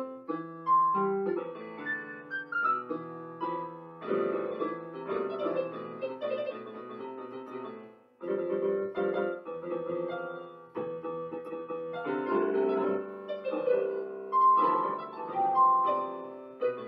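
Piano voice of a portable electronic keyboard playing a solo piece in chords and melody, with a brief pause about eight seconds in before the playing resumes.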